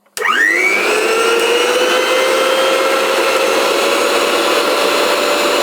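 Electric mixer grinder switched on: the motor spins up within about half a second and then runs at a steady high whine.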